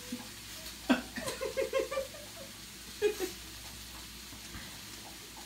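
A person laughing: a quick run of short 'ha' pulses about a second in, then a shorter burst about three seconds in.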